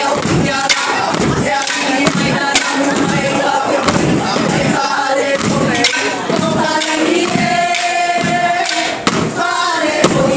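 Wooden hula sticks (kāla'au) knocking in rhythm, over a group of voices chanting or singing.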